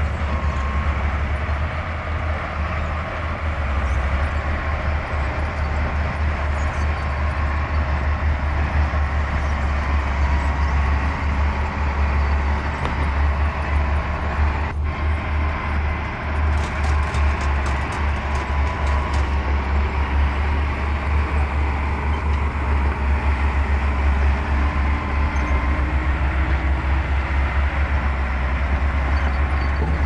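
Komatsu D60P crawler bulldozer's diesel engine running steadily under work, a continuous low rumble with the machine's tracks and drivetrain.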